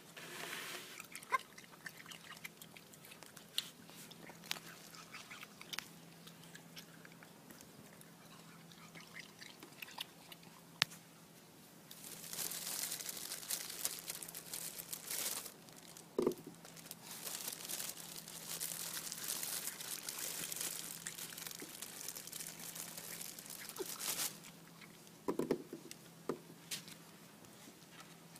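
Raccoon chewing and biting grapes: scattered sharp clicks, then about twelve seconds in a long stretch of loud, hissy crunching with a short break, which stops about twenty-four seconds in.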